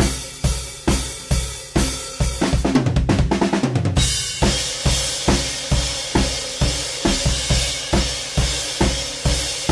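Clear acrylic drum kit played solo in a driving rock beat. About two and a half seconds in comes a fast drum fill, which lands on the cymbals about four seconds in; from there the beat goes on under a steady cymbal wash.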